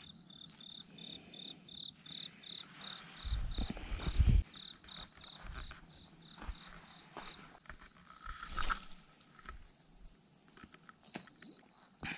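An insect chirping in a steady row of short, high chirps, about three a second, which stop after about seven seconds. A loud low rumble comes about three to four seconds in, and a brief sharper sound near nine seconds.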